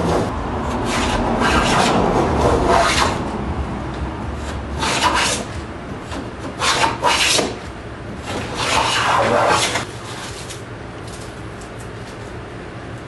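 Hand block plane being pushed along the rough-sawn edge of a board, each stroke a short scraping hiss as it shaves off the high spots. A run of quick strokes comes in the first three seconds, then a few slower, spaced strokes until about ten seconds in.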